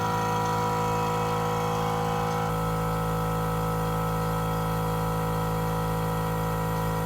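Train horn kit's electric air compressor running steadily, with a slight shift in its note about two and a half seconds in.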